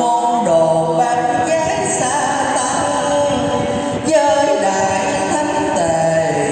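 Male voice chanting Hòa Hảo Buddhist verse in a slow, sung style, with long held notes that bend gently in pitch.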